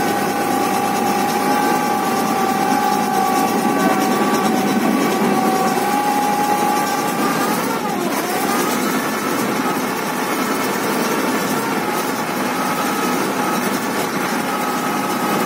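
Ferry engine running steadily with a constant hum; its pitch dips and recovers about eight seconds in.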